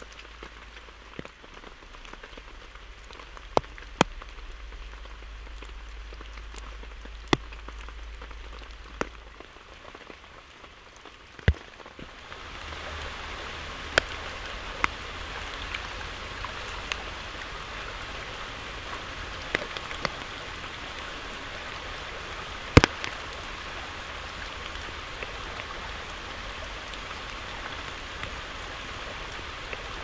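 Rain falling, with large single drops striking close by in sharp taps every few seconds. About twelve seconds in, the rain grows louder and stays steady.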